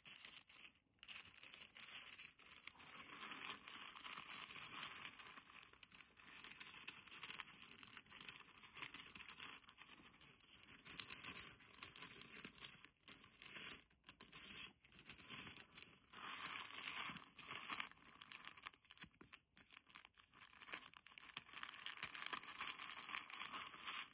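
Thin tissue paper crinkling and rustling as it is folded and smoothed down over the contents of a cardboard mailer box, uneven handling noise with a few short pauses.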